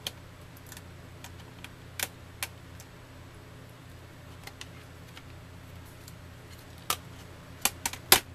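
Scattered light clicks and taps of a screwdriver, loose screws and plastic covers on the underside of a Dell Inspiron 1420 laptop being disassembled, with a quick cluster of louder knocks near the end as the laptop case is shifted by hand.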